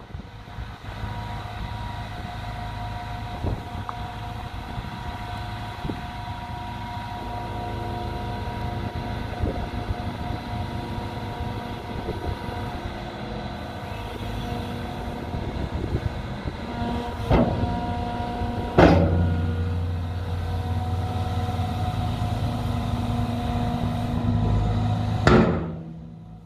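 JCB JS200W wheeled excavator's diesel engine running steadily, with a few scattered clicks and knocks. After two sharp knocks about two-thirds of the way in, it runs louder and deeper, then dips briefly near the end.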